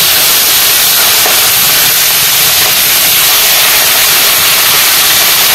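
Fish pieces frying in hot oil in a karahi: a loud, steady sizzle.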